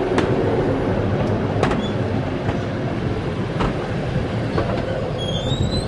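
Running noise of a passenger train heard inside the carriage: a steady rumble with a few sharp clicks from the wheels and track, and a short high rising squeal near the end.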